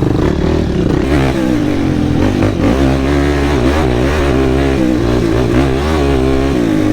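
Sport ATV (quad) engine running under a rider's throttle, its engine speed rising and falling over and over as it is ridden over rough trail.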